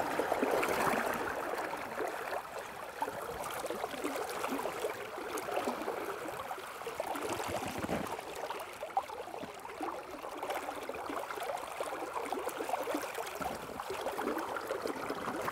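River current lapping and splashing around a landing net held in the water and a wader's legs, while a rainbow trout rests in the net before swimming free. It is a steady, fine-grained water sound.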